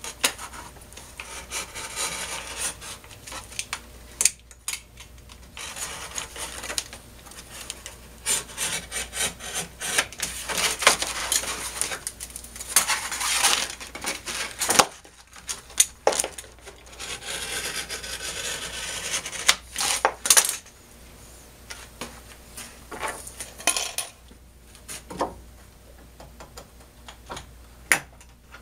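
Stiff cloth-backed 80-grit sanding belt being handled, rolled and laid over a wooden form: irregular rustling and scraping of the abrasive cloth against the bench, with scattered sharp clicks and knocks.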